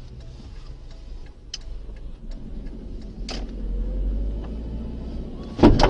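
Road and engine rumble heard from inside a moving car, swelling in the middle, with a few sharp clicks. Near the end comes a sudden loud bang: a road collision in which a scooter rider is knocked down beside a bus.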